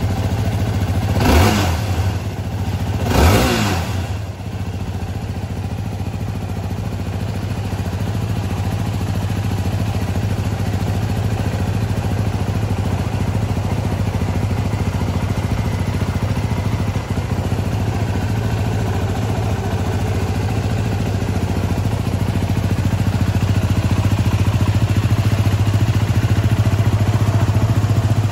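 Yamaha WR250R's 250 cc single-cylinder engine revved twice in the first few seconds, each rev rising and falling, then idling steadily.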